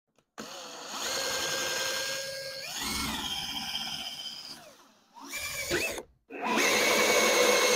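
DeWalt cordless drill driving a hole saw through a golf cart's painted plastic body panel. The motor whines up about half a second in and cuts for about four seconds, gives one short burst, stops briefly, then runs again near the end.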